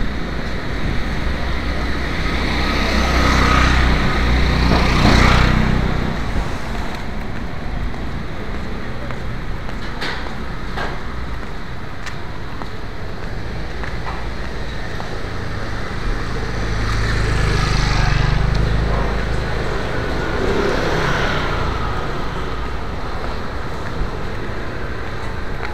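Street traffic noise: the low rumble of motor vehicle engines with road and wind noise, swelling louder twice, about four to six seconds in and again about seventeen to nineteen seconds in.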